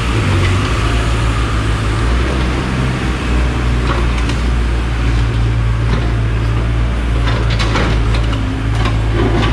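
Diesel engine of a Hyundai 55W wheeled mini excavator running steadily under load as the bucket digs at a tree stump in broken pavement rubble, with a few short knocks and scrapes from the bucket in the second half.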